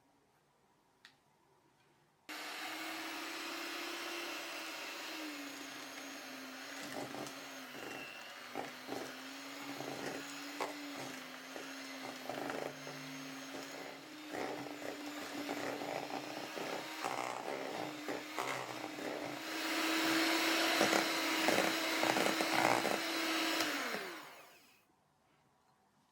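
Electric mixer beating in a bowl: the motor starts up, runs steadily with the beaters clicking against the bowl, goes faster and louder for the last few seconds, then switches off and winds down.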